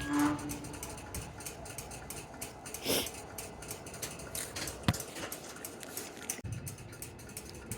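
Faint, irregular ticking and clicking from a loaded coal train, with a louder knock about three seconds in and a sharp click near five seconds.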